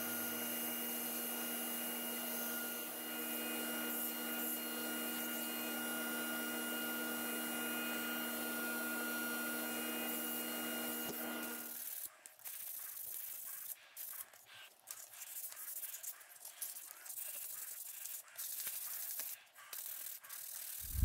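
Belt grinder running steadily with a low motor hum while a wooden scabbard blank is shaped against the belt, cutting off sharply about twelve seconds in. After that, sandpaper rubs and scratches on the wood in scattered hand strokes.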